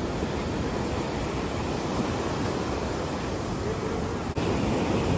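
Ocean surf breaking and washing up a sandy beach: a steady rushing wash of waves, broken by a momentary dropout about four seconds in.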